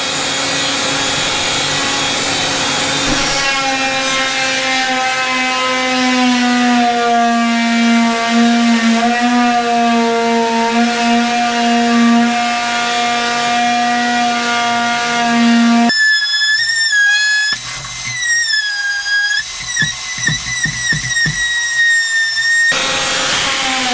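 Oscillating multi-tool buzzing steadily as its blade cuts through the fiberglass deck of a boat's bow, its pitch sagging a little as the blade bites. For several seconds near the end a high, whistling whine with sliding pitch takes over.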